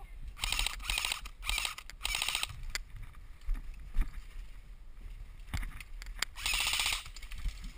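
Airsoft electric gun firing short full-auto bursts, each a rapid buzz of shots: four quick bursts in the first two and a half seconds and a longer one near the end. A single sharp knock comes about four seconds in.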